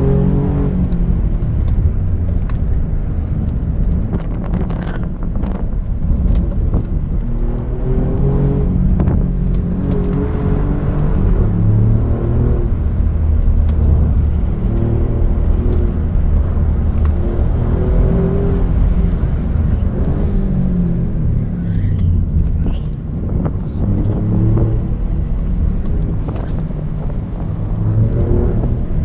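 Alfa Romeo Giulia Quadrifoglio's twin-turbo V6 heard from inside the cabin. It revs up and drops back over and over as the car accelerates and slows through a run of bends, over steady road and tyre noise.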